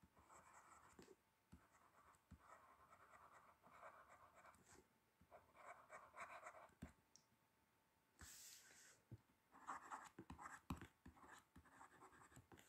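Faint scratching of a pen writing by hand on paper, in short irregular strokes with pauses between them.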